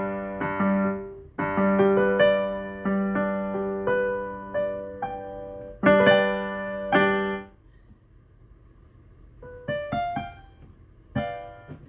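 AODSK S-200 digital piano's piano sound, played through external speakers: loud struck chords that ring and decay for about seven seconds, then a pause and a few softer notes near the end.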